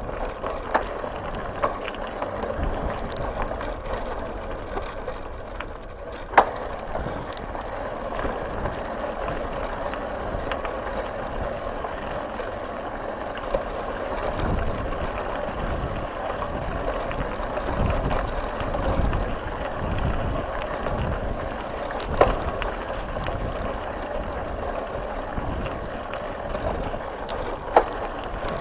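Bicycle rolling along a gravel dirt track: a steady crunching, rattling noise from the tyres on the gravel and the shaken bike, with low rumbles and a few sharp clicks or knocks. The loudest knock comes about six seconds in.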